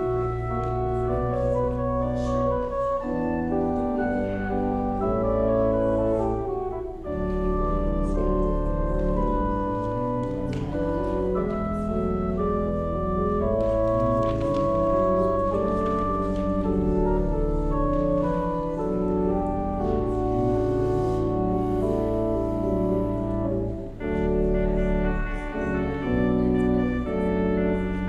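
Organ playing slow, sustained chords over deep held bass notes, the harmony changing every second or so.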